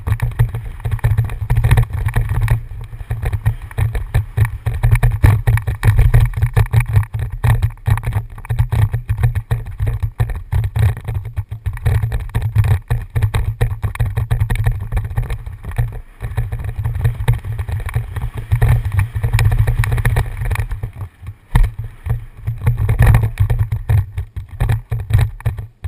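Downhill mountain bike running fast over a bumpy dirt trail, heard from a helmet camera: a loud continuous rumble of wind on the microphone with constant rattling and knocks from the bike and trail.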